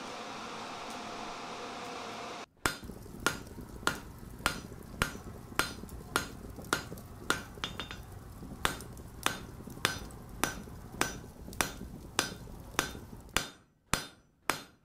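A steady hum, then after about two and a half seconds a blacksmith's hammer strikes an anvil in an even rhythm, a little under two blows a second, each blow ringing briefly. The last few blows come more spaced out, with quiet between them.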